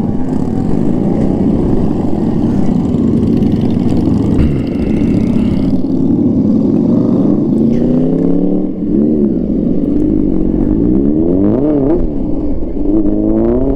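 Big motorcycle engines running, then revving up and easing off several times in the second half as the bikes pull away.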